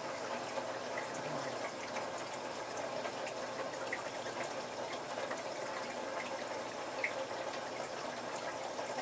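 Steady trickle of running water from a fish tank's filter, with a few faint ticks.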